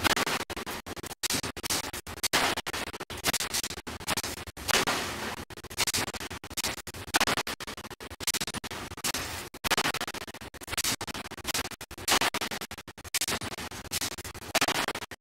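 Forging power hammer striking a red-hot steel ring on a mandrel during open-die ring forging, with uneven harsh blows about once a second.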